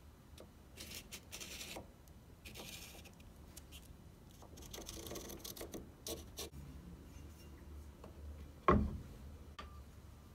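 Carpenter's pencil scratching in short strokes along a cardboard template on a hickory board, with light rubbing and rustling of the cardboard. About three-quarters of the way through, a single sharp knock as the steel axe head is set down on the board.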